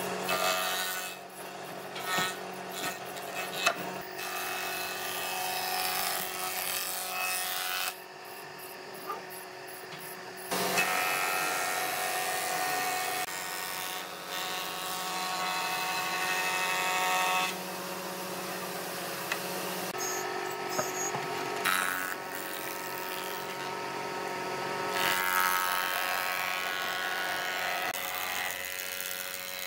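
Combination jointer-thickness planer running with a steady motor hum while its cutter head planes rough wooden boards. The cutting noise rises and falls as each board passes, with a few abrupt changes between passes.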